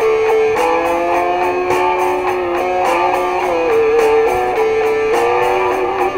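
Instrumental break in a song: strummed guitar under a lead melody of long held notes that bend slightly in pitch.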